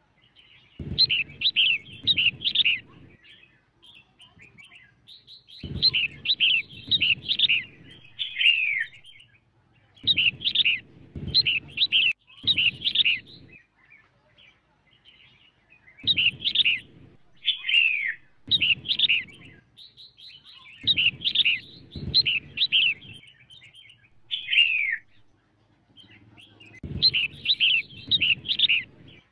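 Female red-whiskered bulbul calling: phrases of quick, clear descending chirps, each a second or two long, repeated every few seconds. This is the kind of female call that is played to rouse wild male bulbuls.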